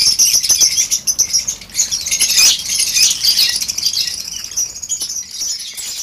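Flock of budgerigars chattering and warbling, a dense stream of quick high chirps that fades out near the end.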